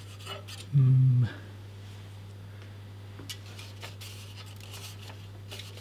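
Faint scattered clicks and taps of hands and a screwdriver working at the stock AMD CPU cooler's mounting, over a steady low hum. A man gives a short hummed "mm" about a second in, the loudest sound, its pitch dropping as it ends.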